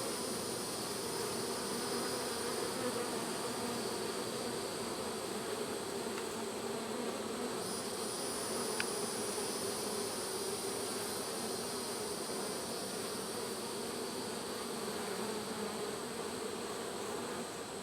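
Honeybees humming steadily around an open hive being worked.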